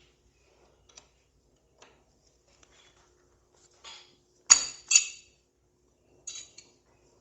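Metal hand tools (wrenches) clinking and clanking as they are handled: light ticks at first, then two sharp metallic clanks about half a second apart a little past the middle, and a few lighter clinks near the end.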